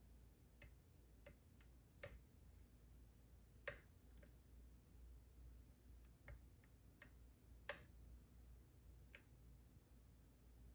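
Faint, irregular clicks of a dimple pick and tension wrench working the pins of a Goal D9 9-pin dimple lock, about nine in all, the two sharpest about a third and two-thirds of the way through.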